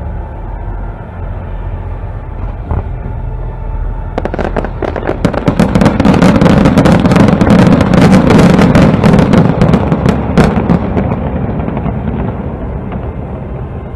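Fireworks crackling and popping: after a low steady rumble, a dense run of sharp crackles and pops starts about four seconds in, swells for several seconds, then thins out near the end.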